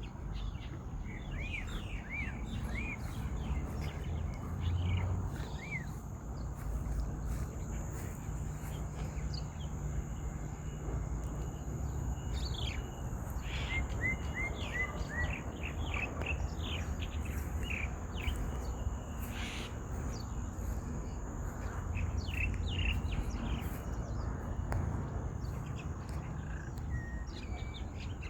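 Small birds chirping and calling: scattered short sliding notes, with a quick run of about five falling chirps around the middle. Beneath them runs a steady low outdoor rumble and a faint steady high whine.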